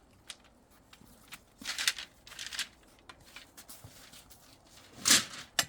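Rustling and scraping from handling bamboo canes among bean plants, a few short scrapes with small clicks in between, the loudest near the end.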